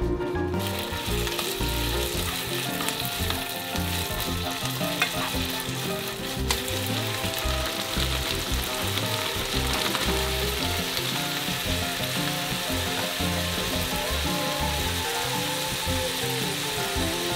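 Marinated beef bulgogi sizzling steadily in a hot frying pan, the sizzle starting about half a second in as the meat hits the pan, while it is stir-fried with sliced onion, green onion and mushrooms.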